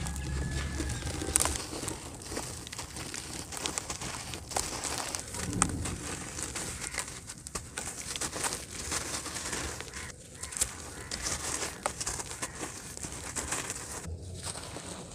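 Dry chunks of sand-cement dirt crumbled by hand, the grit crackling and trickling down into a basin in a dense run of small sharp crackles.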